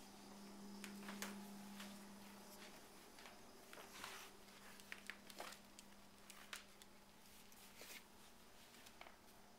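Near silence: room tone with a faint steady hum and a few faint, scattered clicks.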